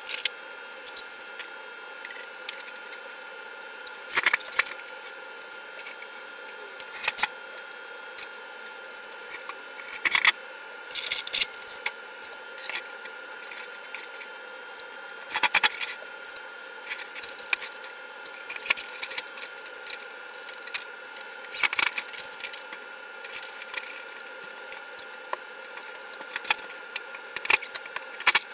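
Metal closet-shelving hardware being handled and fitted at the wall: irregular clinks, knocks and small rattles in scattered clusters, over a faint steady high hum.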